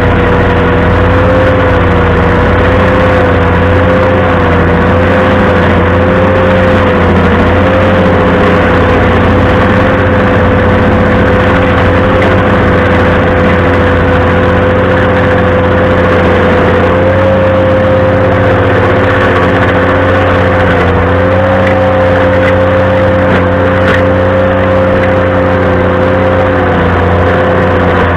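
Ventrac compact tractor running steadily with a stump grinder attachment, with a loud, high squeal held throughout that wavers slightly in pitch.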